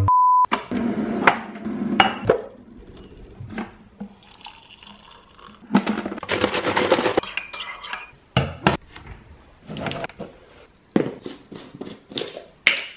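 A short steady beep, then the clinks and knocks of a mug, kettle and jars being handled and set down on a stone countertop, with a stretch of liquid pouring into a mug about six seconds in.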